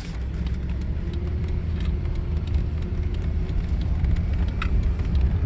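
Cabin noise of a 1986 Mercedes 560SEL on the move: a steady low rumble of its V8 engine and tyre noise, slowly growing louder, with a faint thin hum partway through.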